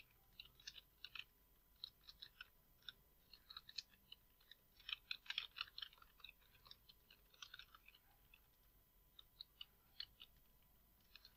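Faint, irregular clicking of computer keyboard keys being typed, with a quicker run of keystrokes about five seconds in.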